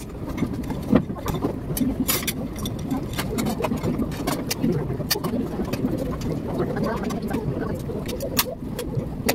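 Steady low room noise with many small, sharp clicks and crackles throughout, from fingers working rice on a paper plate close by.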